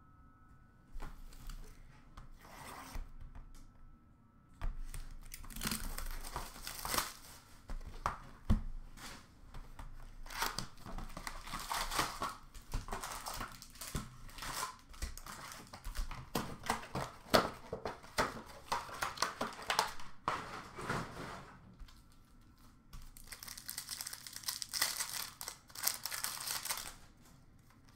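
Upper Deck hockey card pack wrappers being torn open and crinkled by hand, with cards rustling as they are pulled out and handled. The tearing and crinkling come in irregular bursts starting about four seconds in, ease off for a moment about three-quarters of the way through, then pick up again near the end.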